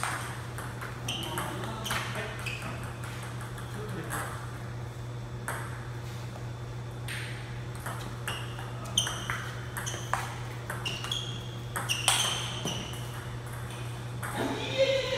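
Table tennis balls clicking off paddles and the table in a rally, at an uneven pace, with further ball clicks from other tables in the hall. A steady low hum runs underneath.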